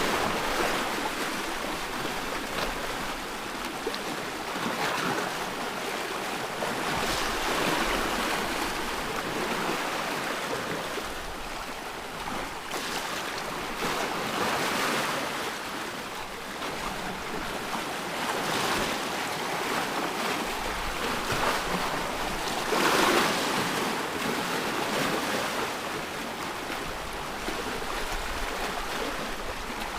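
Ocean surf: waves breaking and washing in, a steady rushing hiss that swells every few seconds, the strongest wave about two-thirds of the way through.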